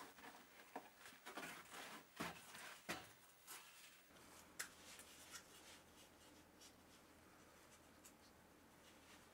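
Thin bentwood drum hoops knocking and rubbing against each other and the wooden shelf as one is lifted down, a few sharp clacks in the first four seconds. Then faint scratching of a small knife blade along the edge of a wooden drum frame, a few light scrapes.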